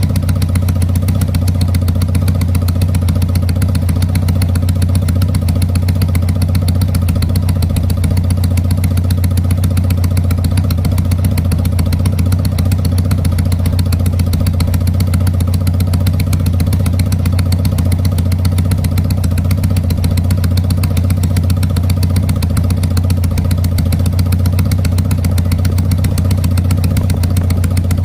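Honda CD200's air-cooled parallel-twin engine idling steadily through aftermarket bullet silencers, with a fast, even exhaust beat and no revving.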